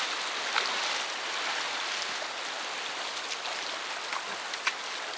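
Fast-flowing river water rushing steadily around an inflatable raft, with a few short splashes from paddles.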